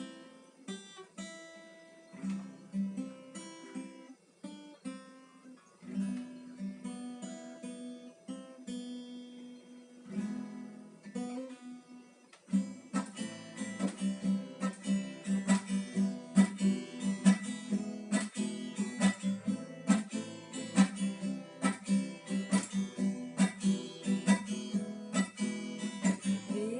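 Acoustic guitar playing a song's introduction. Separate notes are picked slowly at first, and about twelve seconds in, steady rhythmic strumming takes over and grows louder.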